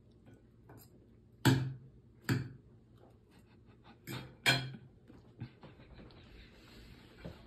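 A person eating with a fork from a plate: short, sharp noises in two close pairs, about a second and a half and about four seconds in, with quiet between.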